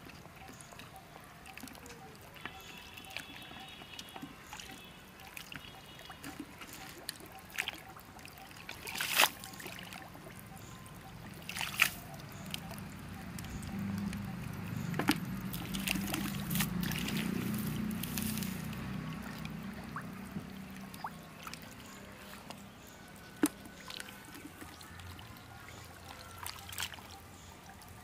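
Water trickling and sloshing, with a few sharp splash-like clicks, the loudest about nine and twelve seconds in. A low rumble swells in the middle and fades away.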